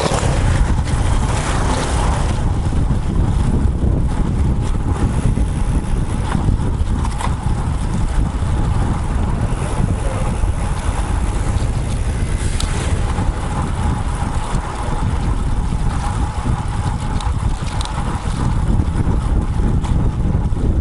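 Wind rushing over the microphone of an action camera mounted on a moving road bike: a steady low rumble with a few faint ticks.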